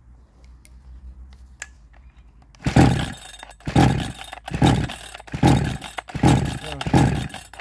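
62cc chainsaw being pull-started: about six quick pulls of the recoil starter in a row, each cranking the engine over with a falling whir, without the engine catching.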